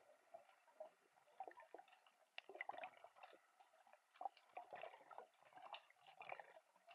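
Near silence under water, with faint scattered clicks and small gurgles of water.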